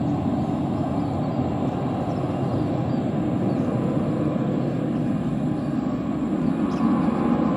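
Jet airliner engines running at takeoff power, heard from near the runway as a steady, dense rumble that swells slightly near the end.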